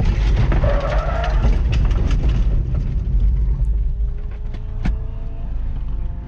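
Inside the cabin of a K-swapped Honda CRX as it runs off the track into dirt: a heavy low rumble of tyres over rough ground with scattered knocks of stones and dirt, easing after a few seconds as the car slows. The off came after the brake fluid boiled in the calipers. A steady engine tone carries on underneath near the end.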